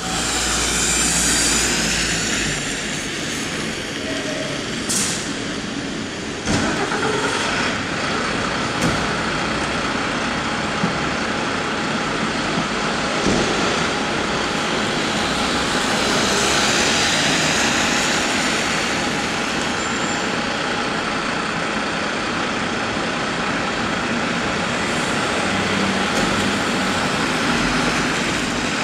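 Steady city traffic noise with a Mercedes-Benz Atego fire engine's diesel engine running, with a few sharp knocks about 5, 6.5, 9 and 13 seconds in.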